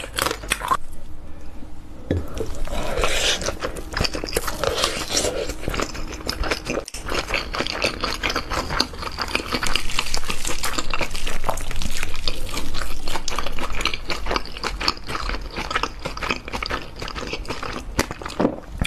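Close-miked eating sounds: chewing and wet mouth sounds over crab and fried rice, then a wooden spoon scooping and stirring through fried rice, full of small clicks and crackles.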